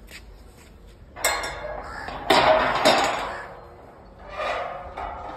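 Metal slatted gate being moved, scraping and rattling in three bursts; the loudest comes about halfway through.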